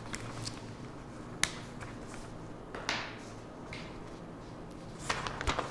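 Small handling noises from a whiteboard marker and papers held in the hands: one sharp click about a second and a half in, a softer rustle near three seconds, and a cluster of small clicks and rustles near the end, over a low steady hum.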